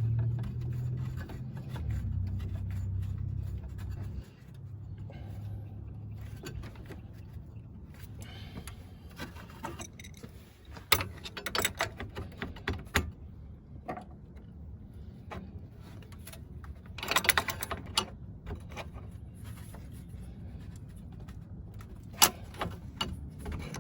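Irregular metallic clinks and rattles of hand tools and the transmission cooler (ATF) line fitting being worked back onto a radiator. There is a run of sharp clicks about halfway through, a short cluster a little later, and a few more near the end.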